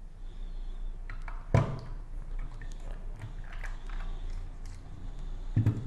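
Hands handling the parts of a Schlage keyless door lock while it is taken apart and reassembled: scattered small clicks and knocks, with a sharper knock about a second and a half in and another near the end.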